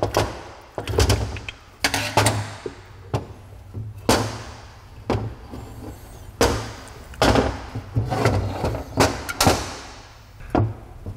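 Aluminium intake manifold being pried off a Roots-type supercharger with a screwdriver and lifted away, giving irregular metallic clunks and knocks, about one a second, as the parts shift and are handled on the bench.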